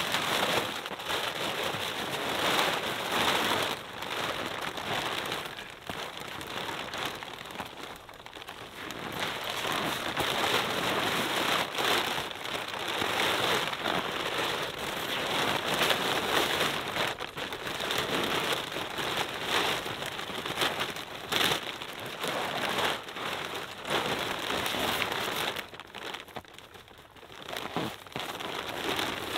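Nylon tent fabric rustling and crinkling continuously as it is pulled and handled, dropping off briefly near the end.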